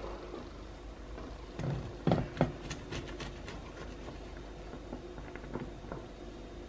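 A plastic slotted turner knocking and scraping against a pan as a poached egg is lifted out of the water. A cluster of sharp knocks comes about two seconds in, with a few lighter clicks later, over a steady faint hum.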